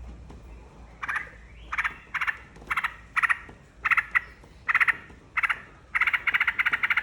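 Yellow-vented bulbul (trucukan) calling in a string of short chattering bursts, about one every half second to second. The bursts start about a second in and run together into a longer chatter near the end. It is a lure recording used to coax caged birds into singing.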